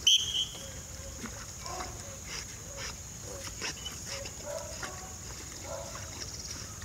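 A single short, high blast on a dog-training whistle at the very start, a stop signal that the swimming Labrador retriever ignores. After it come faint, irregular sounds of the dog swimming and breathing.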